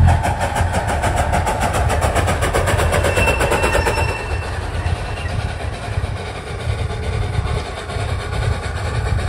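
Small 18-inch gauge steam locomotive, Billy Jones Wildcat Railroad No. 2, running past at speed. It gives a fast, even beat that stops about four seconds in, then a steadier running noise continues.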